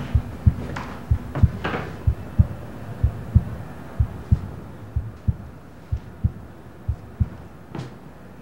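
A slow heartbeat: pairs of low, dull thuds about once a second, growing fainter and stopping near the end. A few light clicks fall in the first seconds, and one sharper click comes near the end.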